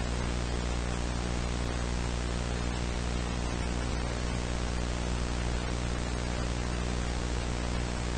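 Steady static hiss with a low buzzing hum underneath, the sound of a dead TV channel or a blank analog tape, unchanging throughout.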